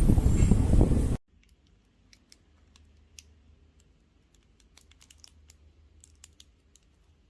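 A loud steady rumbling noise cuts off abruptly about a second in. After it come faint, irregular clicks of keys being pressed on a mechanical keyboard fitted with ABS keycaps.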